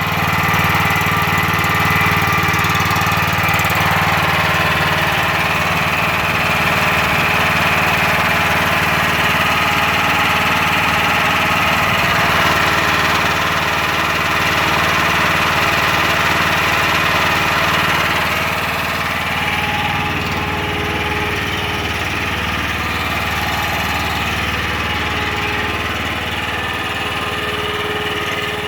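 Small pull-start gasoline engine running steadily at about half throttle on the hand throttle. It gets a little quieter about 18 seconds in.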